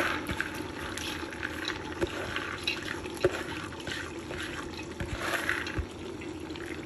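Soaked chana daal (split chickpeas) poured from a plastic bowl into a metal pressure cooker pot, the wet lentils and their water pattering and sliding in with many small clicks and a few sharper knocks.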